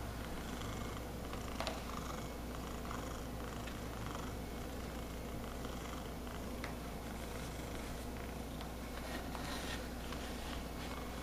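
Domestic orange tabby cat purring steadily as it is stroked, a low continuous rumble. A few faint clicks come through now and then.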